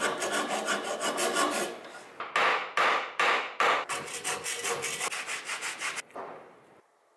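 A hand file rasping a wooden mallet handle: quick short strokes, then a handful of longer, slower strokes, then quick strokes again, stopping about six seconds in.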